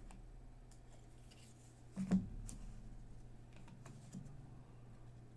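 Trading cards being handled and set down on a tabletop: faint taps and clicks, with one louder knock about two seconds in, over a steady low hum.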